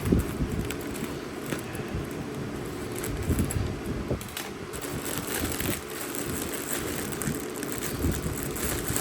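Plastic parcel packaging crinkling and rustling as it is torn open and handled, with irregular small crackles and knocks.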